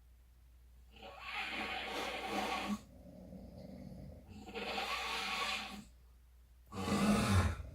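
A person snoring in their sleep: three long snores a couple of seconds apart, the last one the loudest and deepest.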